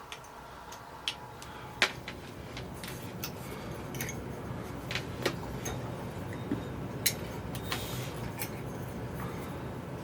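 A dozen or so irregular sharp clicks and light knocks of small hard objects being handled, the loudest about two seconds in, over a low steady hum.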